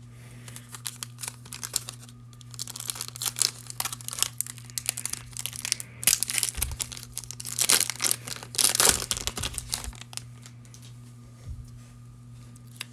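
Foil wrapper of a Score football trading-card pack being torn open and crinkled: a dense run of sharp crackles, loudest between about six and ten seconds in, then dying down.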